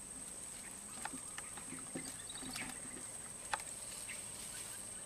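Faint steady high-pitched insect drone over a soft hiss, with a few scattered light clicks.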